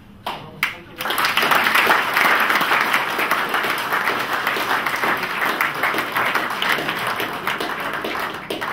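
Audience applauding: two single claps, then full applause breaking out about a second in and tapering off slightly near the end.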